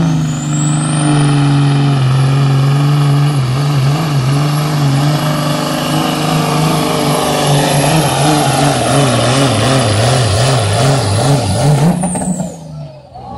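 Diesel semi-truck engine at full throttle pulling a load down a truck-pull track, with a high turbo whistle that rises over the first couple of seconds and holds. The engine note wavers up and down late in the pull, then engine and whistle fall away about 12 seconds in as the throttle comes off.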